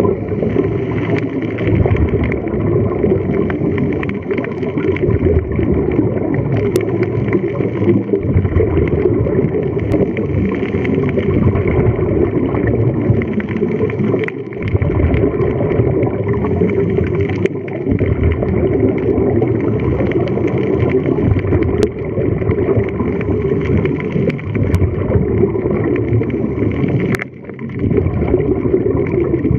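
Underwater noise around a scuba diver, picked up by a camera below the surface: a dense, steady gurgling rumble of water and bubbles, with a few brief dips.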